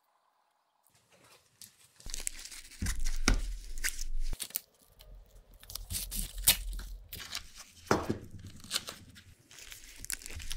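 Red polypropylene sheathing tape (Tuck Tape) being pulled off its roll and pressed down over the cell ends of a lithium-ion battery module: irregular crackly tearing and crinkling with handling knocks, starting about two seconds in.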